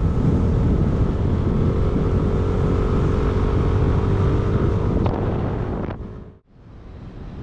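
Motor scooter running steadily under way, with heavy wind buffeting on the microphone. The sound drops away sharply about six seconds in, leaving quieter road noise.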